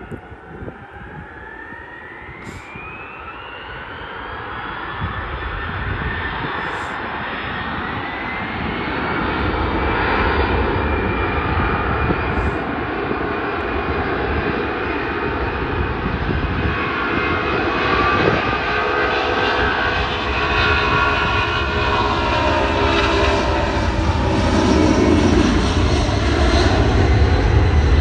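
Airliner engines on final approach, growing steadily louder as the aircraft comes over and lands. A whine glides upward in pitch over the first several seconds, and a deep rumble builds from about ten seconds in, loudest near the end.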